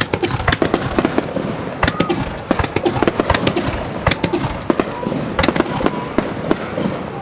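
Aerial fireworks display going off in a rapid, continuous barrage of crackling bursts and sharp pops, many per second.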